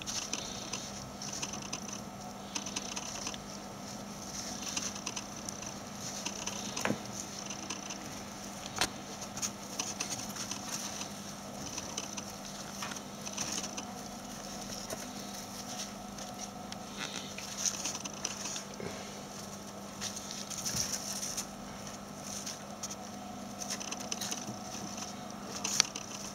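Mongolian gerbils scurrying and rustling through wood-shaving and shredded-paper bedding, with scattered light clicks and scratches, over a steady low hum.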